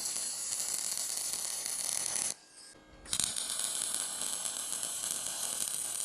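Welding arc laying beads on steel leg brackets, a steady crackling hiss in two runs: the first about two seconds long, then a short break before a second, longer run.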